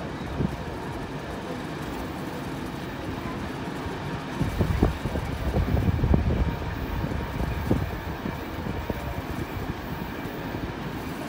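Passenger carriage of a steam-hauled train rolling slowly along the track: a steady low rumble, with a louder run of knocks and clunks in the middle.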